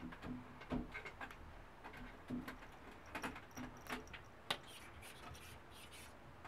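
A kitten playing: paws and claws patting, scuffing and scrabbling at a toy wand on a towel, making scattered soft taps and clicks, with one sharper click about four and a half seconds in.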